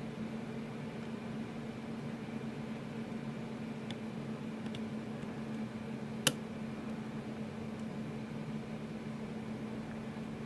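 Steady low hum, with the small metallic clicks of a steel hook pick working the pins of a Sargent XC lock cylinder under tension: two faint clicks about four seconds in and one sharper click a little later.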